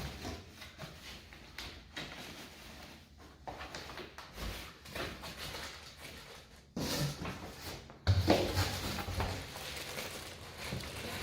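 Chair parts and packaging being handled and pulled from a shipping box: irregular rustling and sliding scrapes. A louder scrape comes about 7 seconds in, and a thump about 8 seconds in as a heavy piece comes out.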